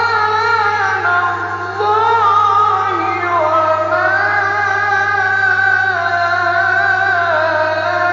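A male Quran reciter chanting in melodic tajweed, drawing out long wavering notes that glide between pitches, over a steady low hum.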